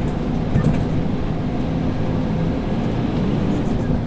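Scania P360 dump truck's diesel engine running steadily, the truck unladen.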